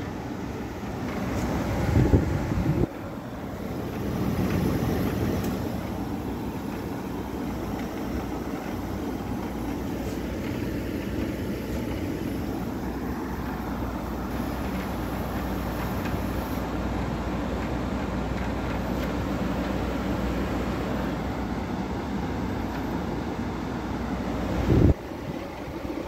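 Montgomery Ward window air conditioner built by Frigidaire, running on cool with its fan and compressor going after being switched from fan only: a steady hum with a low drone. A knock comes about two seconds in, then the sound dips and builds back up, and it falls away sharply near the end.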